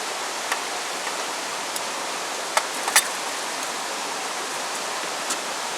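Steady hiss of heavy typhoon rain, with a few sharp clicks, the loudest about two and a half and three seconds in.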